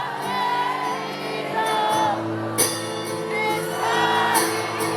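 Live acoustic rock performance: a singing voice holding long, wavering notes over sustained acoustic guitar chords.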